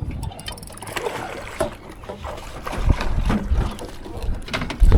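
Water lapping and splashing against the hull of a small fishing boat, with scattered knocks and clicks.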